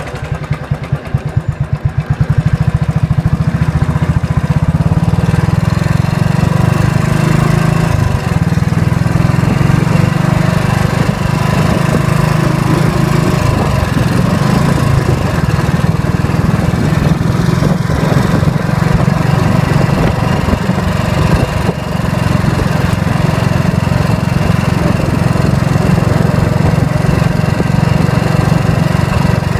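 Royal Enfield Bullet 500's single-cylinder four-stroke engine: slow, separate firing beats at first, then about two seconds in it opens up and runs louder and steadier under way.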